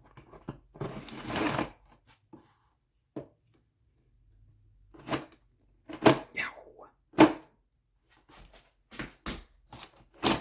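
A knife slicing through packing tape on a cardboard box: a scraping rasp about a second in, then scattered knocks and clicks as the cardboard box is handled and opened.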